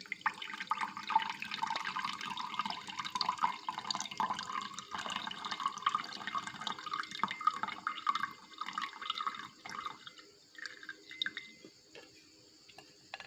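Hot gotu kola leaf decoction being poured through a strainer into a container: a steady splashing pour for about ten seconds that then thins to a few trickles and drips.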